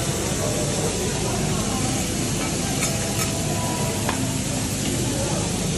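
Food sizzling on a teppanyaki steel griddle, with a few sharp clicks of a metal spatula against the plate about three to four seconds in.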